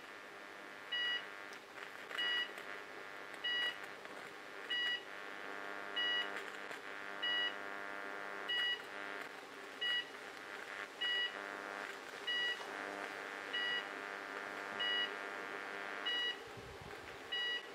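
A short, high electronic beep repeating about every 1.2 seconds over a steady electrical hum with many overtones from two microwave oven transformers in series driving 5000 V into a cooker switch that is arcing and burning. The hum swells in the middle and eases near the end.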